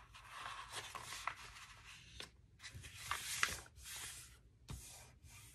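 A sheet of paper rustling and sliding as it is folded in half and hands smooth down the crease, in several faint swishes.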